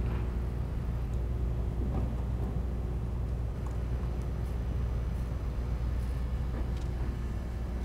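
Steady low rumble with a faint, constant mechanical hum, and a few faint ticks over it.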